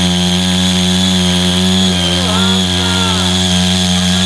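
Small engine of a CY80 foldable mini power tiller running steadily at working speed.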